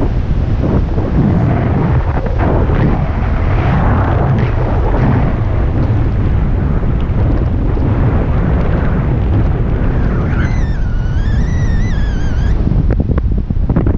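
Wind buffeting the microphone, a loud steady rumble. About ten seconds in, a high wavering tone sounds for about two seconds.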